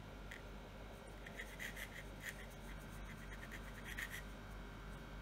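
Pencil scratching on paper in short strokes: a quick run of strokes about a second in and another burst near the end.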